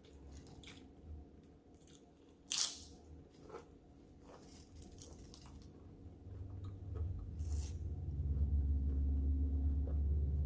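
Close-miked eating sounds: crunching, biting and wet chewing of a BLT sandwich with turkey bacon, with a sharp crunch about two and a half seconds in. A low rumble builds through the second half.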